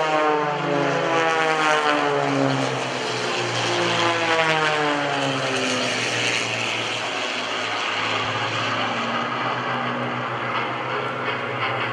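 Piston engines and propellers of aerobatic propeller planes, including a CAP 580, droning as they fly their routine. The pitch falls as a plane sweeps past in the first few seconds and again about four to six seconds in, then settles into a steadier, lower drone.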